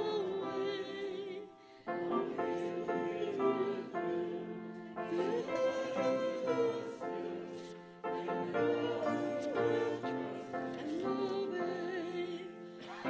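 A congregation singing a hymn in sustained, slow phrases, with short breaks between lines about two seconds in and again about eight seconds in.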